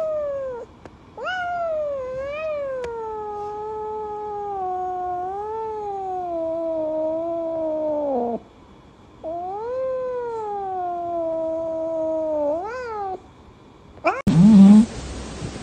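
A kitten giving long, drawn-out meows: the first lasts about eight seconds and slides slowly down in pitch, and the second lasts about four seconds and rises sharply at its end. Near the end a loud rush of noise with heavy low thuds cuts in suddenly.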